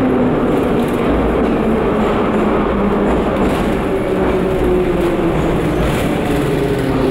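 Metro train heard from inside the passenger car while running: a steady loud rumble of wheels on rail with a low motor hum that drifts slowly down in pitch.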